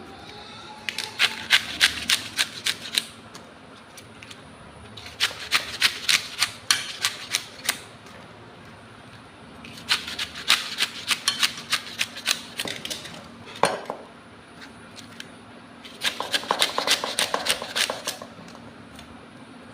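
Kitchen utensil work: four bursts of rapid, sharp taps, each lasting two to three seconds, with short pauses between.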